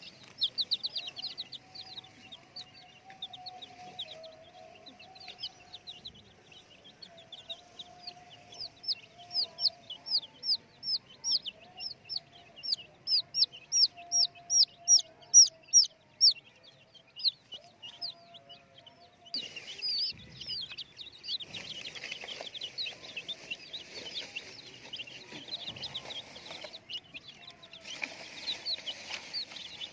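Chicks peeping: long runs of short, high, downward-sliding chirps, about three or four a second, loudest in the middle. From about two-thirds of the way through, a denser, noisier stretch joins the chirps.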